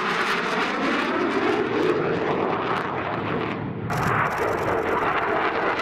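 Panavia Tornado GR4 jet's twin RB199 turbofans running loudly on a low pass, the pitch gliding as it goes by. The sound changes abruptly about four seconds in.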